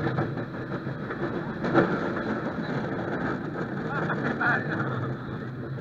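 Small family roller coaster train running along its steel track, heard from the front car: a steady rattle and rumble of the wheels with wind on the microphone, and a louder clunk about two seconds in.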